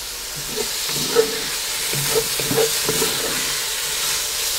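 Pieces of pork neck sizzling as they sear in hot sunflower oil in a cast-iron Dutch oven. A few short scrapes and knocks of a utensil against the pot come as the meat is moved.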